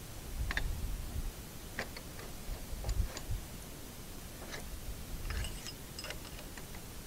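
Light metallic clicks and taps at irregular intervals, with a few dull bumps, as small metal parts of a hydraulic floor jack are handled and fitted by hand.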